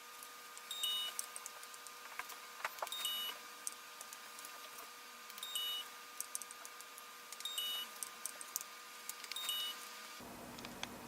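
Wireless calling system beeping during pager registration: five short electronic beeps about two seconds apart, each a high tone stepping down to a slightly lower one, with plastic button clicks in between.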